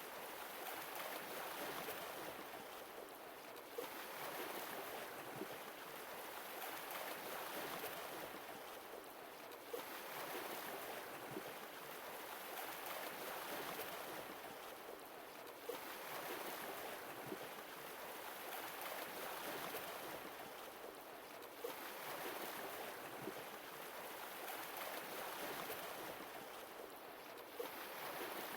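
Sea waves breaking and washing ashore, swelling and ebbing in slow rhythmic surges about every five or six seconds.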